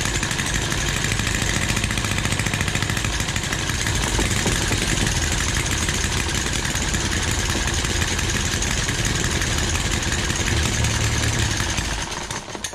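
Two miniature Webster single-cylinder four-stroke model engines running together at a fast, steady idle on coil ignition. Both are newly built and not yet fully tuned. They cut out about twelve seconds in.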